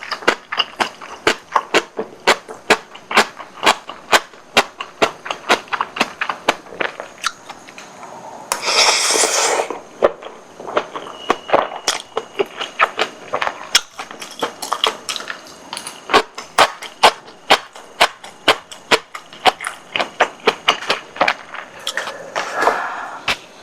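Close-miked chewing of spicy tteokbokki, with a steady run of sharp wet mouth clicks, two or three a second. About nine seconds in there is a louder, brief rushing sound.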